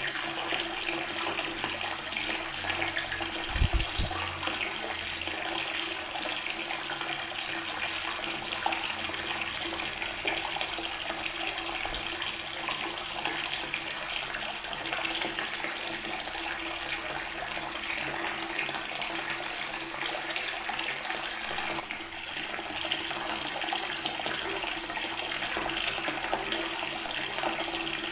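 Water from a tap running steadily and splashing onto natural stone, with a brief low thump about four seconds in.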